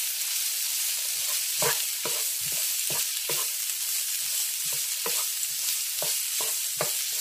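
Mixed vegetables sizzling in oil in a non-stick frying pan, a steady hiss, as a wooden spatula stirs them, scraping and knocking against the pan every fraction of a second.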